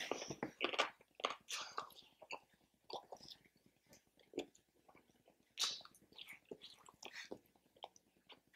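A person chewing and biting food close to the microphone: irregular wet mouth clicks and chews, with one sharper bite about five and a half seconds in.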